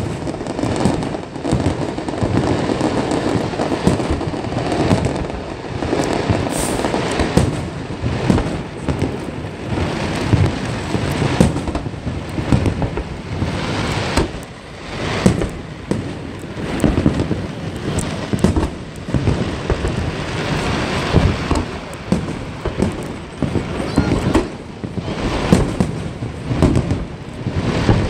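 Aerial firework shells bursting in quick succession in a large fireworks display. Many overlapping reports come several a second, with crackling between them.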